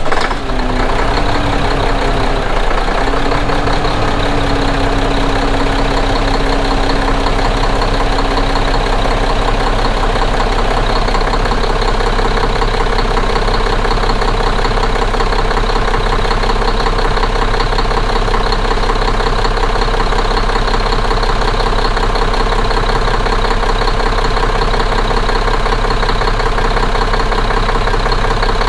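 Diesel engine idling steadily right after being started following a fuel filter change, with a faint whine over the first ten seconds or so.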